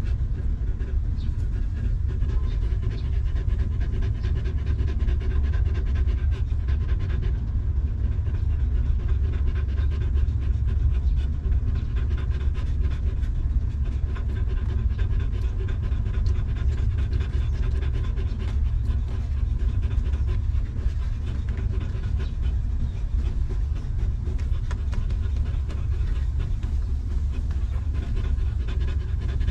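A mother dog panting steadily with her tongue out while her newborn puppies nurse, over a constant low rumble.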